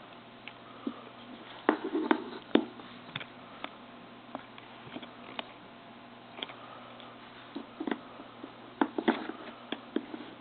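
Irregular small clicks and taps of a tiny screwdriver working the screws of a cell phone's plastic frame, with the phone being handled; a few quick clusters of clicks about two seconds in and near the end.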